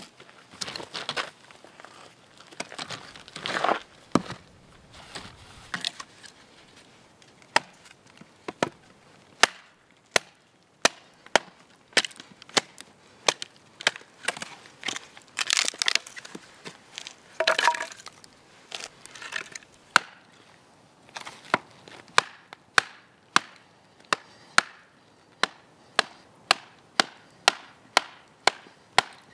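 Firewood being split into kindling, a short log knocked down onto upright pieces: sharp wooden knocks and cracks, irregular at first, then a steady run of about two knocks a second over the last several seconds. Rustling in the first few seconds.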